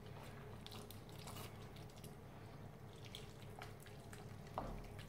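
Faint scattered ticks and crackles of a wet vegetable stew in a frying pan as tinned sweetcorn is scraped into it from the tin with a spatula, over a steady low hum. A light knock comes about four and a half seconds in.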